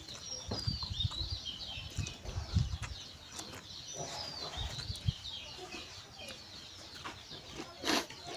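Small birds chirping and twittering in the background, with a few low thumps in the first three seconds and a sharp click shortly before the end.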